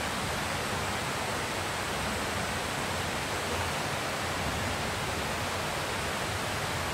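Steady rush of flowing water: an even, unbroken hiss.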